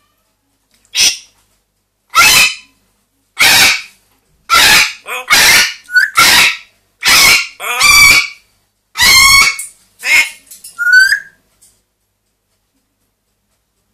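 Pet parrot screaming: about a dozen loud, harsh squawks in quick succession, roughly one a second, stopping near the end.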